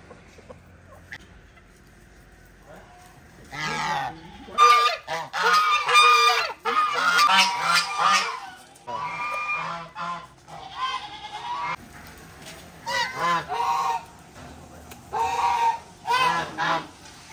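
A flock of white domestic geese honking loudly. The calls start about three and a half seconds in as a dense run of overlapping honks, then go on as shorter, separate spells of honking.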